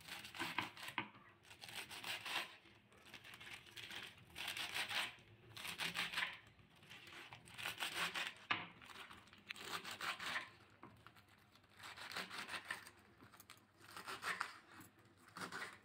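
Kitchen knife chopping fresh spinach leaves and stalks on a wooden chopping board: short runs of quick, crisp cuts with brief pauses between.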